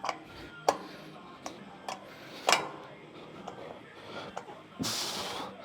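Seated hamstring curl machine being set up and started, with a series of sharp clicks and knocks, the loudest about halfway through, then one forceful hissing exhale near the end as the set begins.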